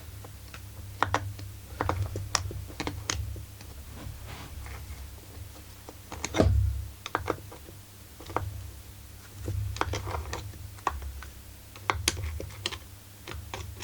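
Irregular clicks and knocks of tools and parts being handled on a partly dismantled Husqvarna 44 chainsaw, with a heavier thump about six and a half seconds in.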